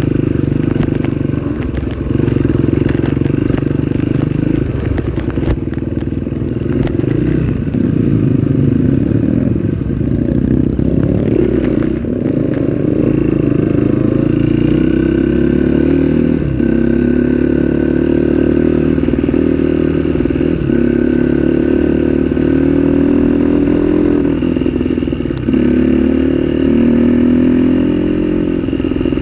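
Trail dirt bike engine running while riding, its pitch rising and falling with the throttle and settling steadier in the second half, with scattered sharp knocks in the first half.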